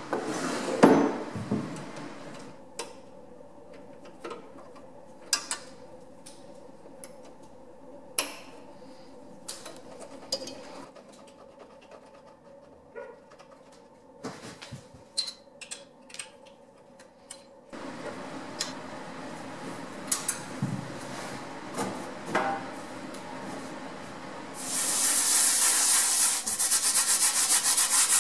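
Scattered clicks and knocks of metal tools and machine parts being handled, with a louder clatter near the start. About 25 seconds in, a steady scratchy rubbing begins: an abrasive sanding disc worked back and forth by hand over a band saw's green painted door panel, scuffing the paint.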